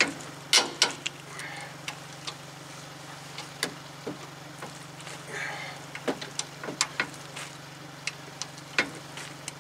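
Ratchet wrench and socket on a 19 mm lower steering-knuckle bolt: scattered, irregular metal clicks and clinks as the bolt is worked.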